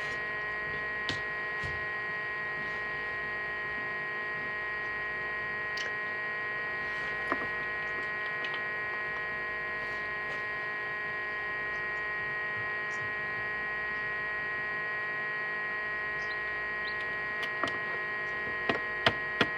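Steady electrical hum of an egg incubator running, with a few faint, brief ticks here and there, several near the end.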